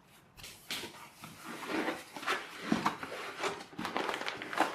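A package being opened and unpacked by hand: irregular rustling and scraping of packaging with light knocks.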